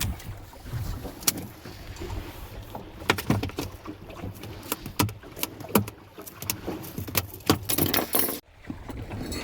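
Irregular knocks, clicks and rattles of gear in a small open boat, over a low steady rumble.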